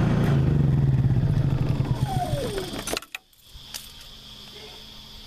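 Honda EU30iu 3 kW inverter generator running, then shut off: its whine falls in pitch for under a second and the engine stops about three seconds in, followed by a single click.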